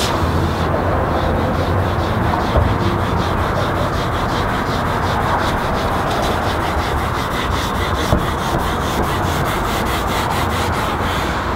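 Felt-edged squeegee rubbing steadily across wet perforated vinyl on window glass, pressing the soapy water out so the vinyl sticks.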